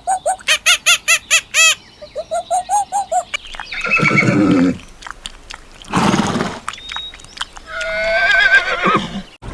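Animal calls: a fast run of repeated chirping calls in the first two seconds, then a few longer calls, one wavering near the end, with a short noisy burst in between.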